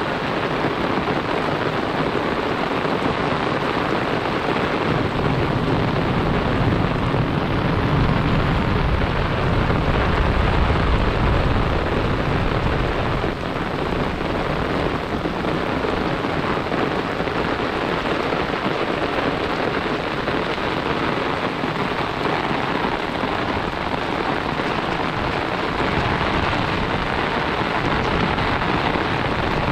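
Heavy rain falling steadily, a dense even hiss. A low rumble swells about a fifth of the way in and fades again before the middle.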